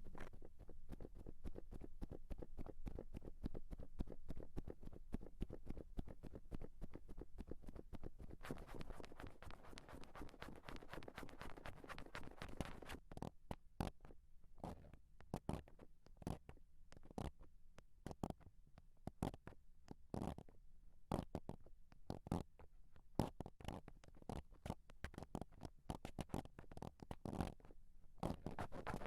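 Wooden ASMR triggers scraping and rubbing directly on a microphone, a close grinding scratch. Dense rubbing through the first half, then separate scrapes spaced about one to two a second.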